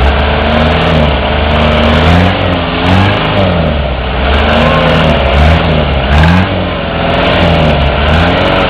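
Toyota Land Cruiser engine revving up and down over and over as the 4x4 works through deep mud. The revs climb and drop again about once a second.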